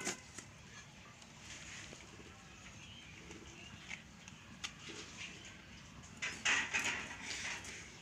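Small wet clicks and rustles of fish pieces and the plastic sheet being handled while a fish is cut up on a boti. About six seconds in, a louder noisy sound lasts for about a second.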